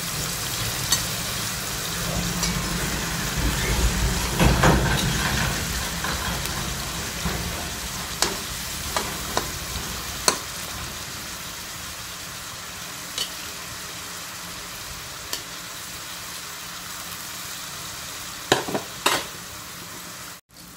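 Peeled eggplant cubes frying in oil in a metal wok: a steady sizzle that slowly grows quieter. A metal spatula scrapes and clicks against the wok now and then as they are stirred.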